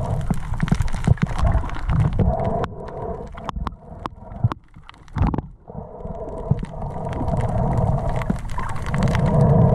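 Underwater sound through an action camera's housing as a freediver fins over a reef: a steady water rumble with many sharp clicks and crackles. It falls quieter for a couple of seconds around the middle, where the clicks stand out, then swells again.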